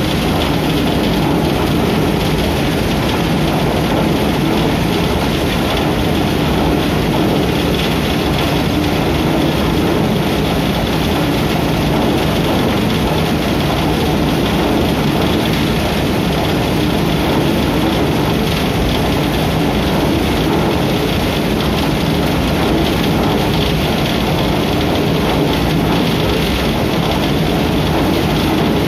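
Shaftless rotary thresher running steadily, its wire-cage drum turning with crop material tumbling inside; a loud, unbroken mechanical noise.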